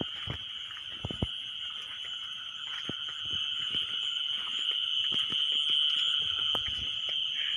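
Steady high-pitched drone of a chorus of calling animals, typical of crickets or frogs at night, with a few short soft knocks about a second in.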